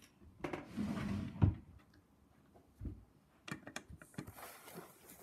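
Things being handled and rummaged through in a box of craft items: rustling, with scattered clicks and knocks and a louder thump about a second and a half in.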